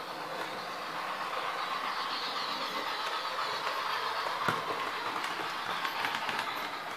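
Jouef model 141 R oil-fired steam locomotive with a rake of log wagons running on the layout track: a steady whirring rattle of motor and wheels on the rails, growing louder as the train passes close. A sharp click about four and a half seconds in.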